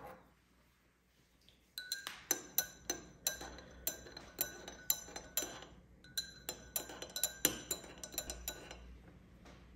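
Glassware clinking: a run of light chinks, at times two or three a second, each ringing briefly. It starts about two seconds in and thins out near the end.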